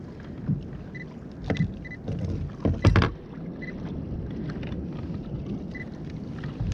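Fishing kayak on open sea: steady low wind and water rumble against the plastic hull, with a few sharp knocks, the loudest pair about three seconds in, and faint short high beeps scattered through.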